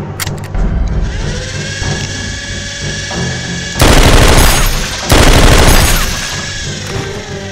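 Background music, with two bursts of rapid automatic gunfire near the middle, each about a second long and much louder than the music.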